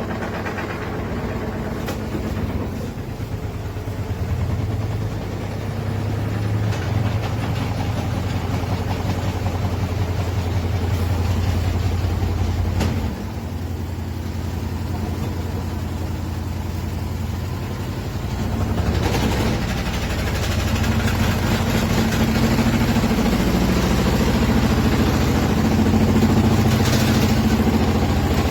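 Front-loading washing machine running with a steady low motor hum. The hum drops briefly about halfway through, then steps up and grows louder from about two-thirds of the way in.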